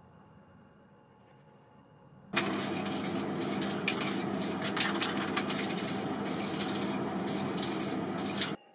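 Aerosol spray-paint can spraying gold paint onto small model-car wheels: a loud continuous hiss that starts about two seconds in, flickers slightly as the spray is played across the parts, and cuts off abruptly near the end.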